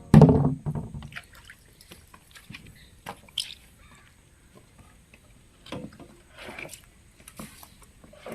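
Water splashing and dripping: one loud sudden splash right at the start, then scattered small drips and splashes.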